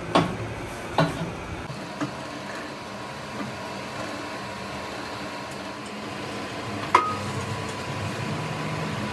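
Ringing metal clanks of a lathe's chuck key tightening the chuck jaws on an alloy wheel, three knocks about a second apart, then another single clank about seven seconds in. A steady hum of the lathe runs under it, and near the end the lathe is spinning the wheel.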